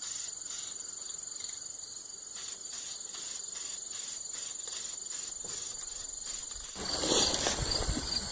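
Crickets chirping in a steady, evenly pulsing chorus with a constant high trill. About seven seconds in, a louder rustling noise with a low rumble joins in.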